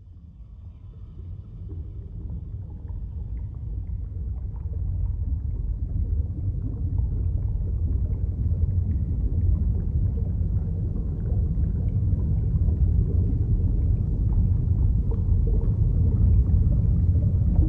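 Low rumble of wind on the microphone, fading in over the first several seconds and then holding steady, with faint ticks above it.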